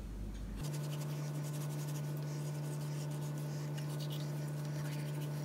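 Kitchen knife slicing through a raw fish fillet on a plastic cutting board: a run of quiet, irregular scratching and scraping strokes over a steady low hum.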